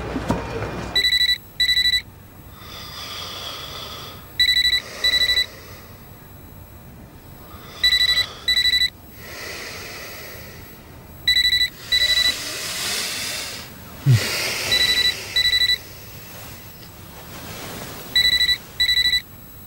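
Mobile phone ringing: a high electronic double beep, repeated six times about every three and a half seconds.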